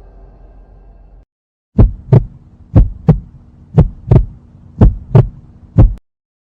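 Heartbeat sound effect: double thumps about once a second, five beats in all, over a steady low hum. It starts after a brief silence and stops shortly before the end.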